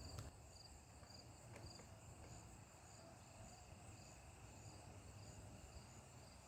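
Faint crickets chirping, short high chirps repeating about twice a second, over near silence.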